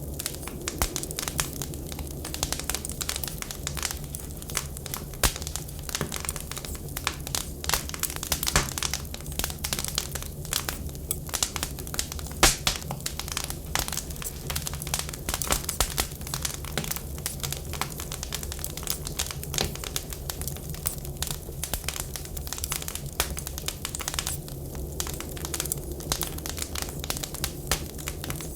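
Wood fire crackling and popping in irregular rapid snaps, with one louder pop about twelve seconds in, over a steady low rumble.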